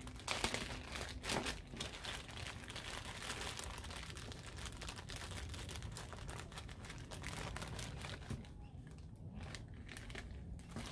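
Small clear plastic parts bag crinkling and rustling as it is opened and handled, with a patter of small clicks. The crinkling thins out about eight seconds in, with one sharper click near the end.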